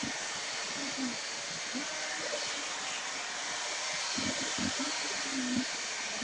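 Handheld hair blow dryer running steadily, an even rushing hiss of air blown through the hair.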